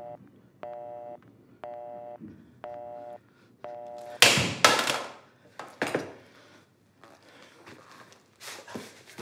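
Telephone busy tone heard through a rotary phone's handset, beeping about once a second as the call ends. About four seconds in the handset is thrown and lands with a loud clatter of several knocks, with a couple more knocks near the end.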